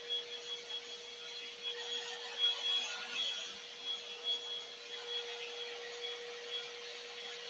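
Revlon One Step Hair Volumizer hot-air brush running steadily: a constant motor whine with a thin high tone over a rush of blown air, as it is worked down through the top of the hair.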